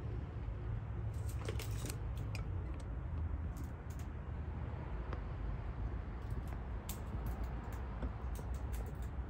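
Scattered small sharp clicks and taps over a steady low rumble. The clicks come in loose clusters, about a second in, around four seconds and more thickly in the last few seconds.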